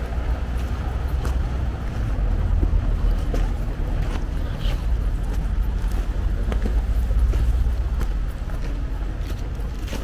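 Wind buffeting the microphone in an uneven low rumble, with footsteps crunching on gravel and dry fallen leaves on a forest track.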